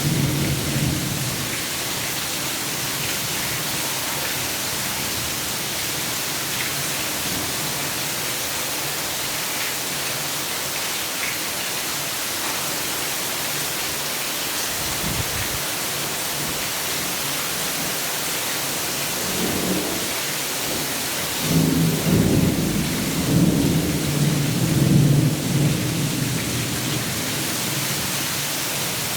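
Thunderstorm: steady rain hissing, with a thunder rumble dying away in the first second. A longer, louder roll of thunder builds from about twenty seconds in and rumbles on for several seconds.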